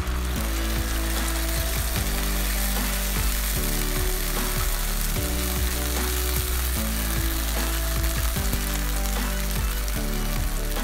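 Canned sardines in tomato sauce, with onion and garlic, sizzling steadily in a hot frying pan as they are stirred with a wooden spoon. Background music with a moving bass line plays underneath.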